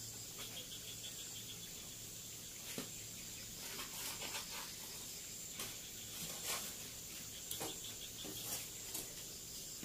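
Faint, steady high-pitched trilling of crickets, with scattered soft pops and crackles from spice paste frying in oil in a wok on a gas burner.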